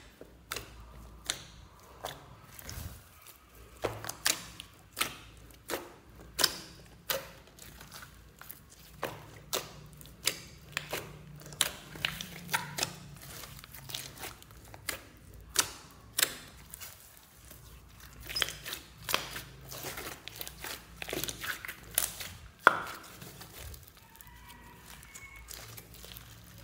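Hands kneading and squeezing a large mass of slime, making irregular sticky pops and clicks, about one or two a second. The loudest pop comes near the end.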